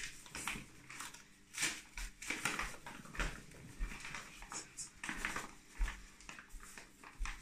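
Paper flour bag crinkling and rustling in the hands, in irregular bursts, as flour is shaken out of it into a plastic mixing bowl.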